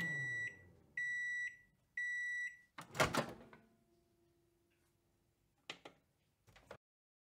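Microwave oven finishing its cycle: its running hum cuts off, it sounds three long beeps about a second apart, and then the door latch clunks open. A few light clicks follow near the end.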